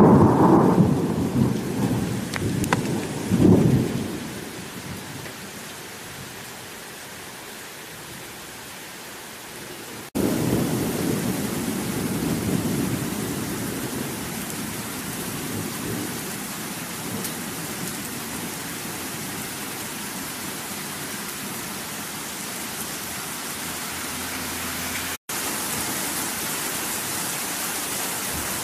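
Rain falling steadily, with rolls of thunder rumbling twice in the first few seconds. About ten seconds in, the rain jumps abruptly louder at an edit, and it cuts out for a moment near the end before carrying on.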